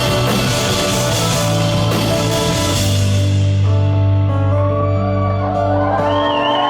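Live rock band playing an instrumental passage with drums, guitar and bass. The cymbals and drums fall away about halfway through, leaving held bass notes and chords, and a wavering higher melody comes in near the end.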